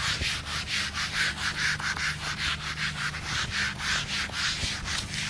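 Whiteboard eraser rubbed back and forth over a whiteboard, wiping off marker drawings in a quick, even rhythm of about four strokes a second.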